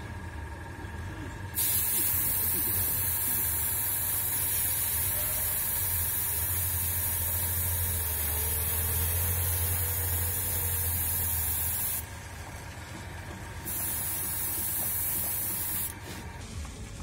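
Airbrush spraying paint with compressed air: a steady high hiss that starts about a second and a half in, cuts off about twelve seconds in, and sprays again for about two seconds near the end.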